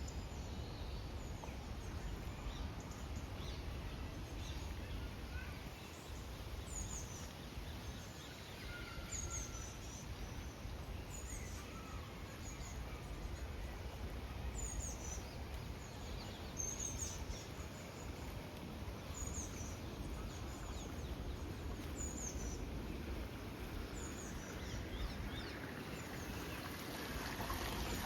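A bird repeating a short high chirp about every two seconds over a steady background rush of outdoor noise, with a few fainter calls lower in pitch.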